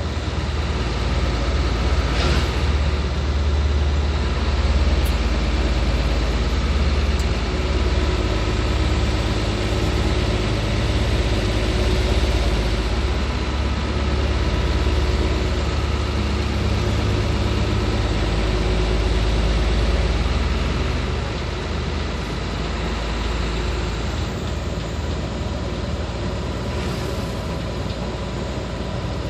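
Hino 500 truck's diesel engine running steadily under way, with a deep rumble and road noise, easing off slightly about three-quarters through.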